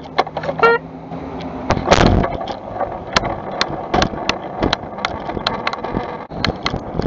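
Car running and turning, heard inside the cabin: a steady low engine and road hum with a string of sharp clicks, about two or three a second, and a heavier thump about two seconds in.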